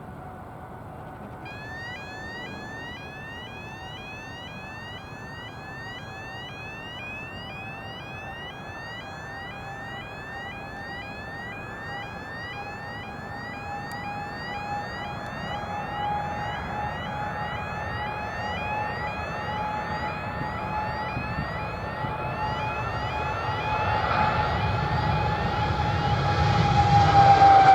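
Boeing 787-8 Dreamliner's twin jet engines at takeoff power, growing steadily louder with a steady whine that drops in pitch near the end as the airliner passes. A fast, regular series of faint high rising chirps runs over it from about a second and a half in.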